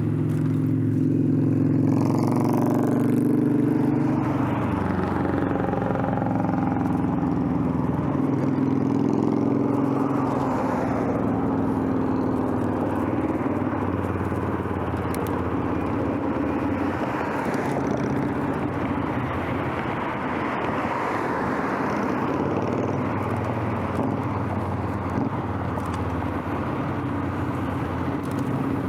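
Road traffic: car engines running close by, their tones strongest in the first few seconds, then a steady rush of traffic and tyre noise.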